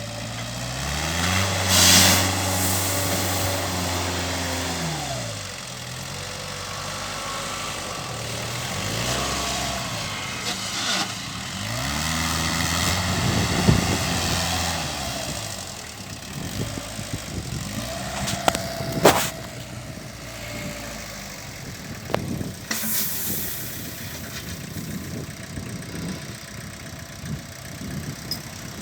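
Engine of a small concrete-mixer loader running, revving up and dropping back several times, with a few sharp metal clanks later on.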